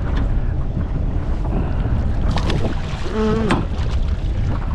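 Steady wind noise on the microphone over water around a small aluminium boat. A few light knocks come around two and a half seconds in, and a short pitched call about three seconds in.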